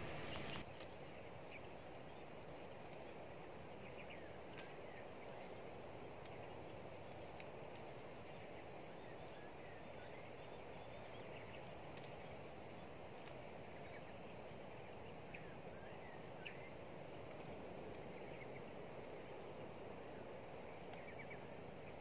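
Insects chirring steadily in a fast, high pulse, with a few faint bird chirps.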